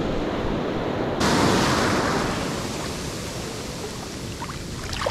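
Ocean surf washing up a sandy beach: a steady rushing hiss of breaking waves and foam, louder from about a second in and easing off toward the end.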